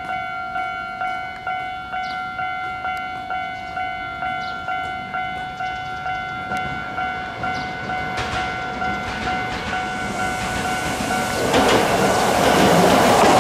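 Japanese level-crossing alarm ringing, a steady set of tones pulsing about twice a second. About eight seconds in, a Hankyu 1000 series electric train's running noise swells, and near the end the train passes loudly, wheels on rail drowning the bell.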